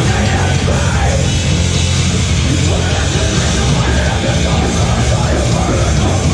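Metalcore band playing live and loud, guitars and drums with heavy low end, and the vocalist shouting into the mic.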